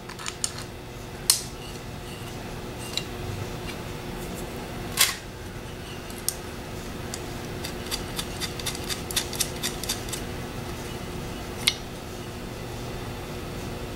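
Light metallic clicks and taps of small screws and parts being handled and fitted by hand into a GM CS144 alternator's rear end frame, with a quick run of clicks about two-thirds of the way through, over a faint steady hum.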